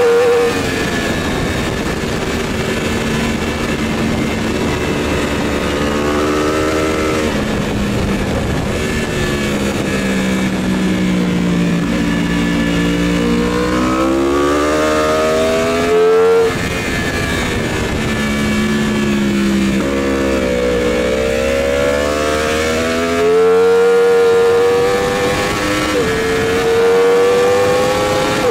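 Race motorcycle's engine heard from onboard under hard use: its pitch sinks as the rider slows for the corners, then climbs strongly as it accelerates, with a sudden gear-change drop about halfway through and another near the end.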